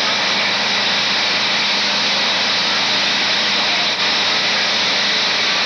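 Steady, loud rushing roar of a large building fire, with the steady hum of a fire engine's motor running underneath.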